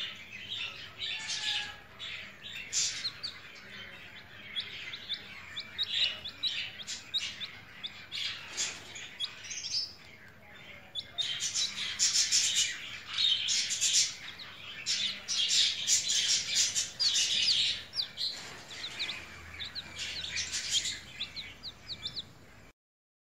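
Newly hatched chicken chicks peeping: many short, high chirps overlapping in a steady chorus, busiest in the second half. The sound cuts off abruptly near the end.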